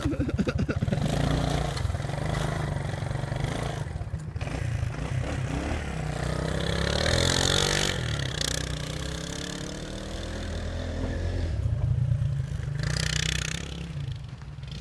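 ATV engine running and revving as the quad churns through deep snow, its pitch rising and falling around the middle.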